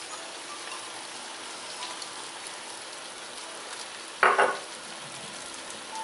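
Browned ground turkey and spaghetti sauce sizzling steadily in a pot on medium-high heat. A short, loud clatter comes about four seconds in.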